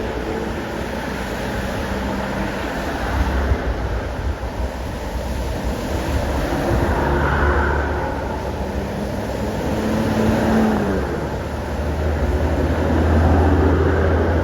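Large vehicle engines, plausibly buses, driving through flood water: a low engine drone over a steady wash of water and tyre noise. The drone swells near the end, and one engine tone falls away about ten seconds in.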